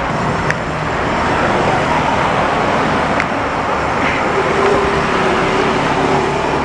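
Street traffic noise: a steady wash of passing vehicles.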